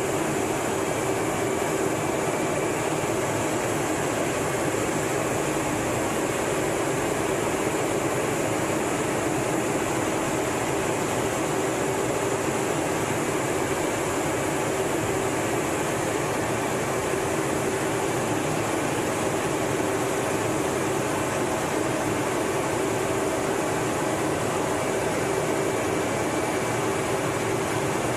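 Steady in-flight cockpit noise of an F/A-18 Hornet: engine and rushing-air noise with a steady hum, even in level throughout.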